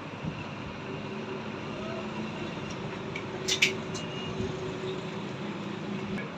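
Electric churner (madhani) motor running steadily under test after a bearing change, with a steady hum and no grinding: the new bearings run fine. A couple of light clicks come about three and a half seconds in.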